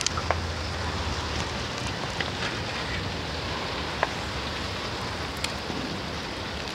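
Steady background noise with a low hum, and a few faint clicks and ticks from the cactus being handled as its dried leaves are pulled away.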